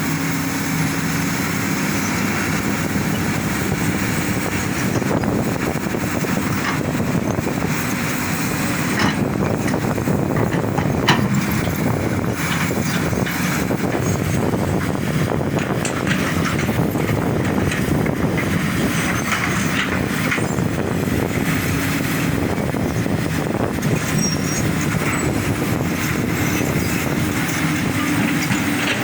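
Diesel engines of heavy earthmoving machinery (excavator and bulldozer) running steadily while working soil, with a few sharp knocks about a third of the way in.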